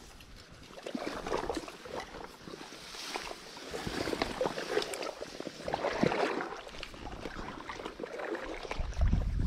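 Water sloshing and splashing around a wading angler's legs as he shifts and moves in the river, coming in uneven swells with small clicks of handling. A low rumble near the end.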